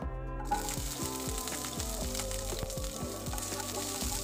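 Garlic cloves frying in hot mustard oil in a non-stick kadai, the sizzle starting about half a second in as they go into the oil and carrying on as they are stirred with a wooden spatula. Background music runs underneath.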